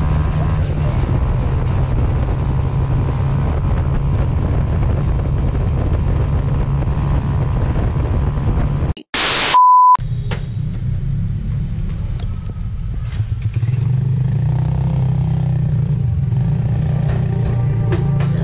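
Small motorbike engine running steadily under way, with road and wind noise. About nine seconds in, the sound drops out for a short burst of hiss and a brief high beep, then the engine sound comes back.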